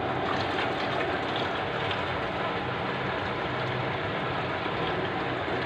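Water running steadily from a hose into the small plastic tank of a Symphony Ice Cube personal air cooler as the tank fills.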